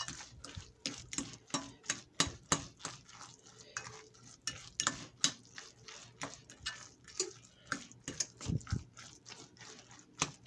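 A fork stirring and fluffing cooked stuffing in a dish, with irregular clicks and scrapes of the fork against the dish, about two a second.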